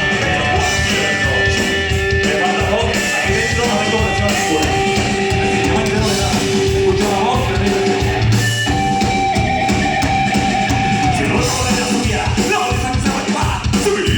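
Live rock band playing loud, with dense drumming, electric guitar and a singing voice holding long notes.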